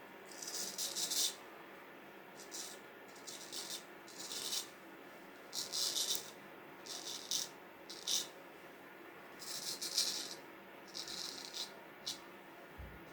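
Short, irregular bursts of light rattling and rustling as a set of vintage straight razors is handled, each burst lasting well under a second.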